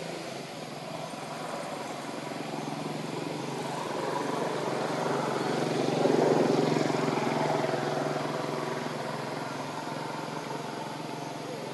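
An engine passing by: a steady drone that swells to its loudest about six seconds in, then fades away.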